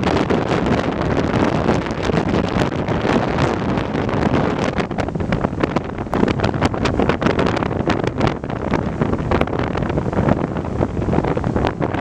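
Strong wind buffeting the microphone, a loud constant rush broken by many quick crackles, over storm surf breaking on the beach.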